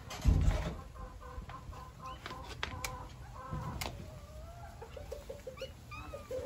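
Domestic hens clucking, with a quick run of short clucks about five seconds in. A dull low thump comes near the start.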